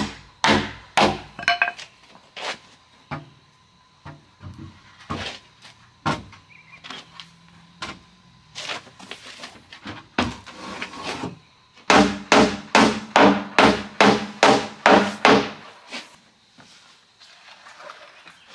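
Repeated hard knocks of a tool striking wood. A few spaced strikes come first, then softer scattered taps, then a quick, even run of about a dozen heavy blows, roughly three a second, before it settles.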